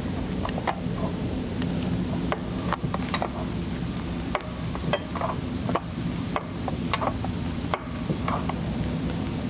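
Hands and gloves working a spin-on oil filter tight inside an aircraft engine compartment: scattered light clicks and rubbing at an irregular pace, over a steady low background hum.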